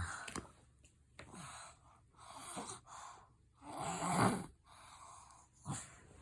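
A small child's noisy breathing in sleep: a series of rasping breaths about a second apart, snoring and gasping, the loudest about four seconds in. The snoring comes from enlarged tonsils narrowing his airway.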